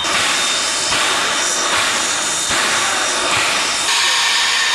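Steam hissing from a Willamette geared locomotive, a Shay-type engine. The hiss starts suddenly and shifts in tone about every second.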